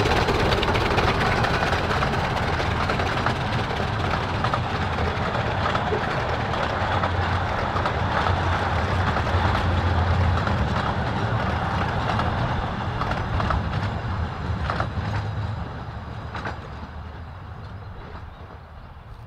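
Narrow-gauge steam train of the 15-inch-gauge Ravenglass & Eskdale Railway running past, a steady rumble of locomotive and coaches on the rails with scattered clicks. It fades away over the last few seconds as the train moves off.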